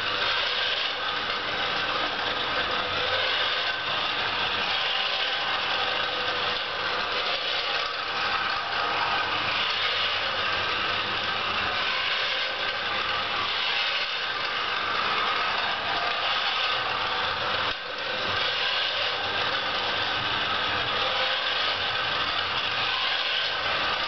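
Homemade robot vacuum cleaner's small suction fan and DC drive motors running steadily as it moves over the floor, a constant whirring hiss.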